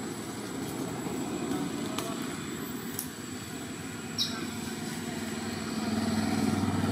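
A motor vehicle's engine running, a steady low rumble with a low hum that grows louder near the end. A short high chirp sounds once about four seconds in.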